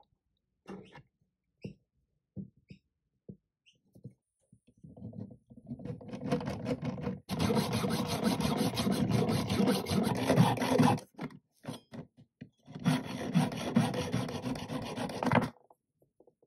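Hand hacksaw cutting through a steel carriage bolt in quick back-and-forth strokes, in two spells with a short pause between them. Before it, a few light clicks of metal parts being handled.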